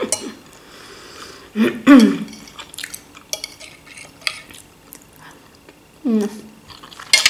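A metal fork clicking and scraping on a plate while fried dumplings are picked up and eaten, with two short voiced sounds from the eater, about two seconds in and again near six seconds.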